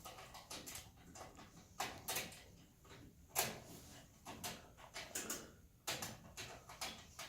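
Irregular light clicks and knocks of hand tools and small parts being handled while reassembling a furnace.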